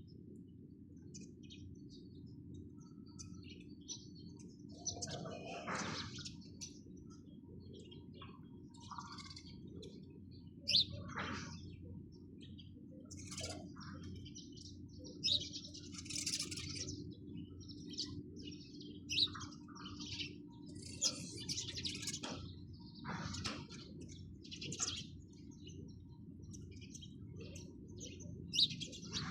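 Sparrows chirping: many short, sharp chirps in irregular clusters throughout, over a steady low hum.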